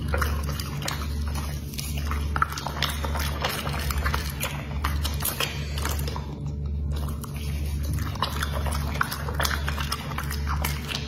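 A dog chewing raw meat, with wet smacking, licking and slurping of its lips and jaws, over a low steady hum.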